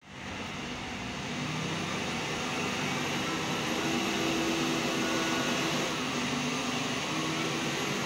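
Steady machine drone with a thin high whine that dips briefly about six seconds in.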